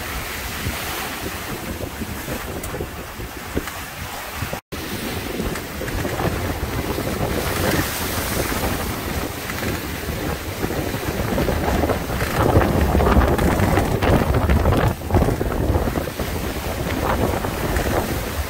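Wind buffeting the microphone over sea water rushing and splashing past the hulls of an F31 trimaran sailing in a breeze, growing louder in the second half. The sound drops out completely for a moment about five seconds in.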